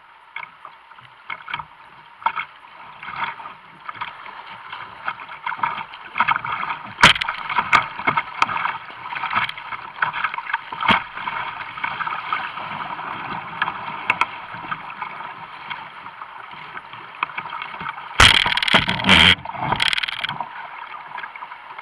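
Fast, muddy floodwater rushing around a kayak, with scattered paddle splashes and knocks. A burst of loud splashing comes about eighteen seconds in, as the boat runs through rapids.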